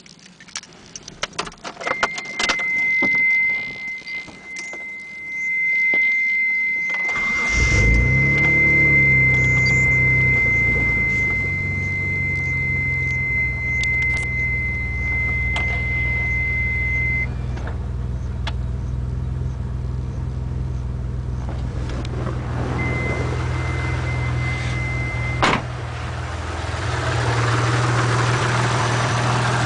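Mitsubishi 3000GT VR4's twin-turbo V6 being started: a few clicks and a high steady tone, then the engine catches about seven seconds in and settles into a steady idle. The idle carries a tick that the owner takes for lifter tick.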